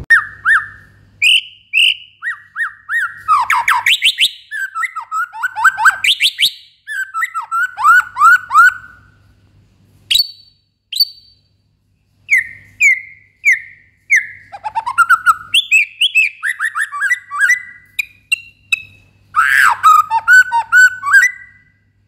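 White-rumped shama singing a loud, varied song: clear whistled phrases, quick runs of down-slurred notes and fast trills, separated by brief pauses.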